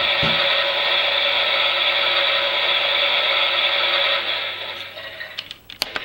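Toy Miele Softtronic washing machine's small motor and gears whirring steadily as the drum turns, dying away about four seconds in, followed by a few sharp clicks near the end.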